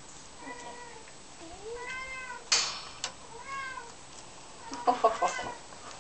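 Bengal kittens meowing, about four short meows that rise and fall in pitch. A loud sharp burst of noise comes about two and a half seconds in, and a quick clatter of knocks near the end.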